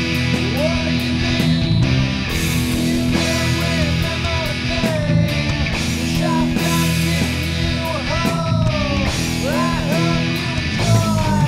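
Background rock music with electric guitar over a steady backing, the lead notes bending up and down in pitch.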